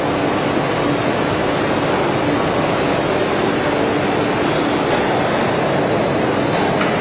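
Veneer splicing machine running, a steady, loud mechanical noise with a faint hum.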